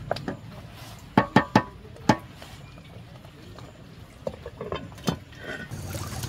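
Wooden spatula knocking sharply against a metal cooking pot, about four times in quick succession, then lighter clinks as the metal lid is set on the pot. Near the end the sound gives way to steady trickling water.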